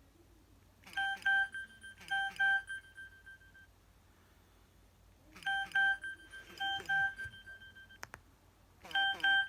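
Mobile phone speaker playing short electronic beeps in repeated groups of two or three notes, with some gliding notes among them, as ringtones arrive over Bluetooth.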